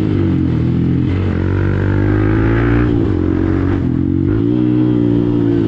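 Hero Xpulse single-cylinder motorcycle engine running through an aftermarket Akrapovič exhaust, its revs rising and falling gently under throttle.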